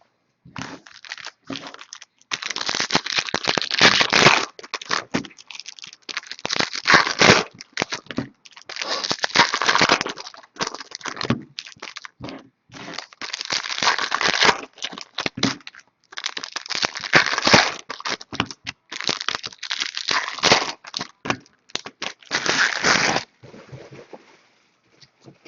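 Plastic trading-card packaging crinkling and tearing, in about eight bursts of a second or two each, as a box of baseball cards is unwrapped and opened.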